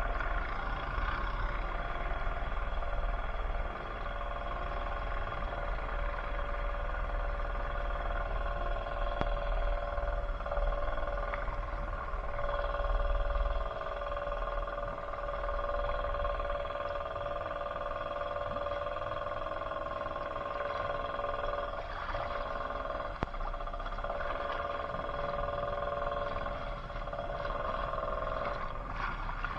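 ATV engine running at a steady speed, a constant drone with a low rumble underneath.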